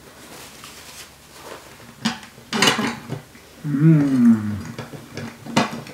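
A low, closed-mouth 'mmm' of enjoyment from someone chewing durian, falling in pitch, about three and a half seconds in. Before and after it come a few short clicks and smacks of eating and of utensils on plates.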